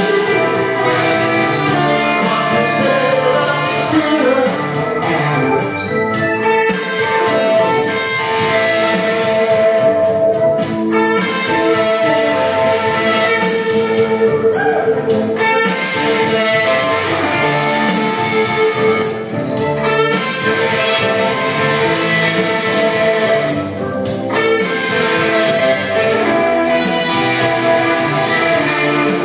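Live amplified music: a guitar played with singing, heard through PA speakers in a small room.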